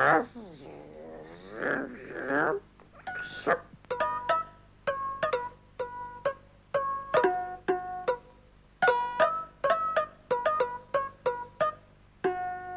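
A short wavering vocal sound, then a plucked-string tune of quick, separate notes that starts about three seconds in and keeps going.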